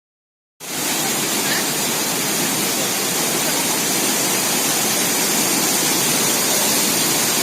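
Rushing water of a waterfall: a loud, steady rush that cuts in abruptly about half a second in.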